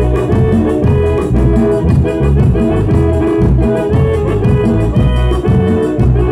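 Live grupo band music: an organ-voiced Korg synthesizer keyboard playing sustained chords and melody over a steady, rhythmic low beat of bass and drums.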